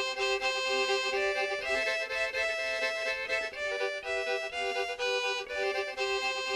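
Background music: a fiddle-led tune with notes changing every half second or so.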